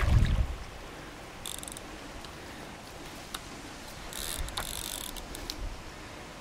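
Fishing reel's drag clicking in two short bursts, about a second and a half in and again around four seconds, as a hooked carp takes line. Low wind rumble on the microphone in the first half second.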